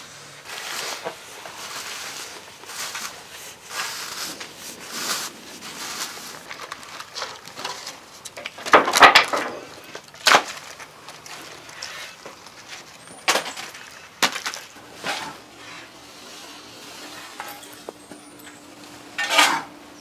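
Clean-up at a sawmill: rustling and scraping with irregular clattering knocks of wood scraps and offcuts being handled and tossed. The loudest knock comes about nine seconds in, with others near ten, thirteen and nineteen seconds.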